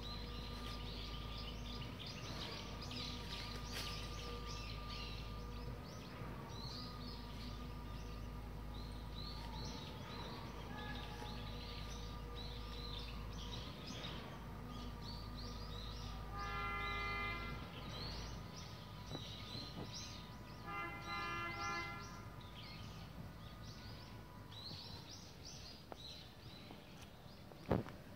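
Small birds chirping and twittering outdoors over a steady low background hum. Twice, about halfway through and again a few seconds later, a horn-like pitched tone sounds for about a second, and a single sharp click comes near the end.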